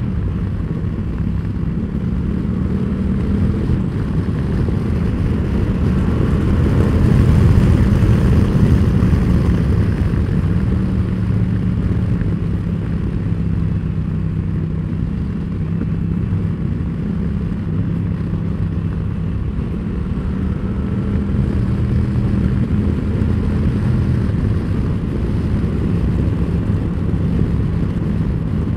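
Yamaha Tracer 700's parallel-twin engine running under way as the motorcycle rides on after accelerating out of a bend, with wind rush over the helmet-camera microphone. The engine grows louder about seven seconds in, then settles back to a steady cruise.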